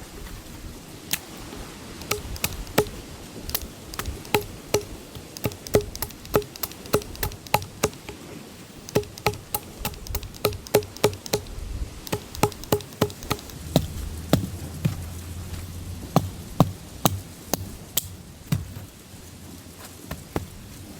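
An irregular series of sharp knocks, about two or three a second, many with a short ring to them, as of something being struck repeatedly by hand.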